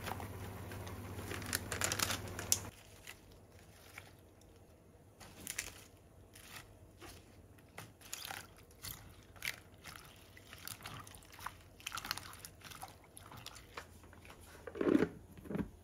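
A steady hum fades out after the first few seconds. Then leaf lettuce rustles and splashes as it is swished in a bowl of water. Near the end a plastic salad spinner gives two short squeaks as it starts turning, the loudest sounds here, a squeak the owner finds bothersome.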